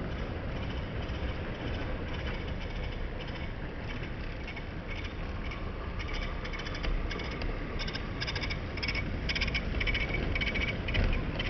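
OO gauge model train running on the layout track: a steady rumble of the wheels and motor, with rapid light clicking of the coach wheels over the rail joints that grows louder from about halfway through.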